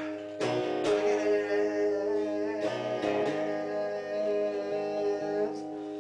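Electric guitar strummed, its chords left to ring, with a man singing along. Fresh strums come about half a second in, again at one second and around three seconds, and the sound fades near the end.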